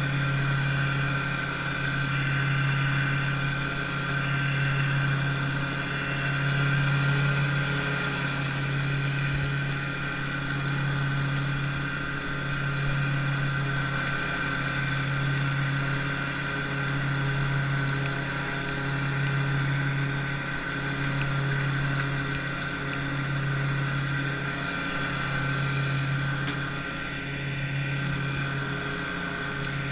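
An engine running steadily, its low hum swelling and fading in a slow, even beat about every second and a half.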